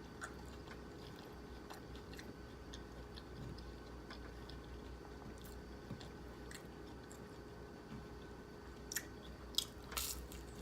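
A person chewing fried pork lumpia with a thin crispy wrapper: soft, quiet chewing throughout, with a few louder crunchy bites about nine to ten seconds in.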